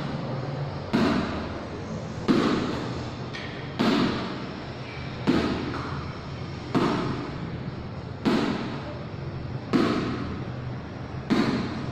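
A ball thrown against a wall and caught in a one-handed catching drill, thumping eight times at a steady pace of about one every second and a half. Each thump echoes in a bare hall.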